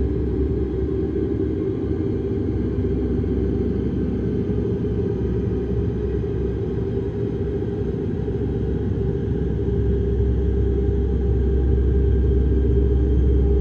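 Horror ambience sound effect: a low, steady rumbling drone with a faint held tone over it, swelling a little near the end.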